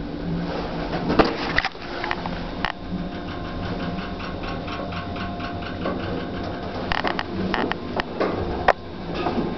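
Wheel-O-Vator Evolution traction wheelchair elevator car travelling in its hoistway: a steady machine hum with scattered clicks and clunks, and an even ticking for a few seconds in the middle.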